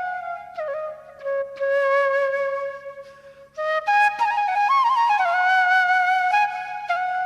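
Background music: a flute playing a slow melody of long held notes with small bends between them.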